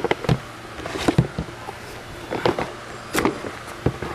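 Cardboard sleeve being slid off a hard plastic tool carry case, with scattered knocks and scrapes as the case is handled.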